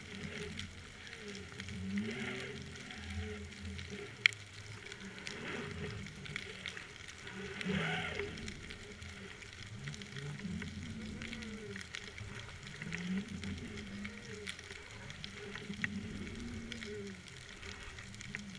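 Underwater ambience picked up by a submerged camera: a constant crackle with scattered sharp clicks, one louder click about four seconds in. Over it runs a low moaning tone that rises and falls, repeating every second or two.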